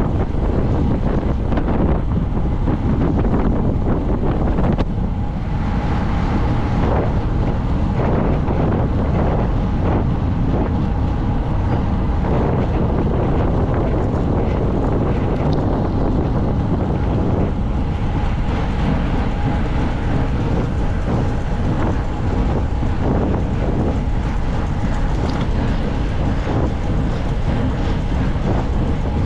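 Steady, loud wind rumble buffeting the microphone of a camera moving at bicycle-race speed, with a faint steady whine underneath from about five seconds in.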